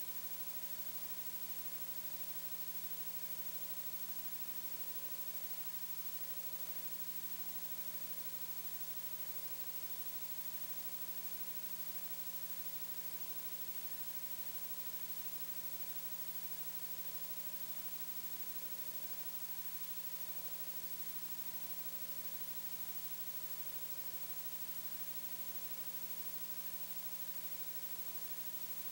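Steady electronic hiss with a low hum and a thin steady high tone, unchanging throughout: background noise of the broadcast feed with no commentary.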